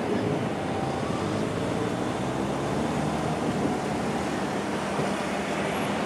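Road traffic at a railway level crossing: car engines idling and starting to pull away, a steady rumble with no crossing bell.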